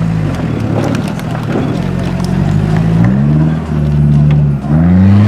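An off-road competition vehicle's engine running hard under load. Its revs climb, drop sharply twice in the second half, and climb again each time.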